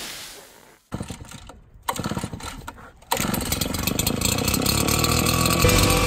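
Gas-powered backpack leaf blower being started: two short bursts as the engine coughs, then it catches about three seconds in and keeps running steadily. Music comes in faintly near the end.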